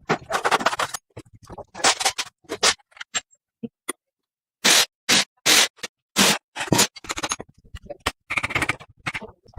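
Hand scraping on a workpiece in short, separate strokes, a run of them about two a second through the middle.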